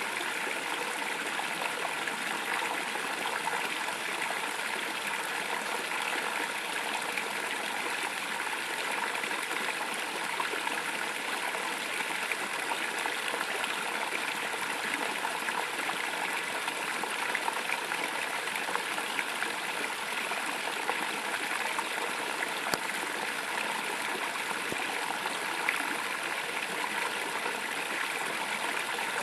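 Small stream of water pouring into a pond, a steady, even splashing rush without pause.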